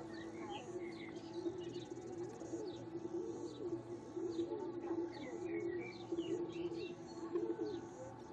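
Birds chirping: many short, quick chirps keep coming, over a lower wavering call that repeats again and again.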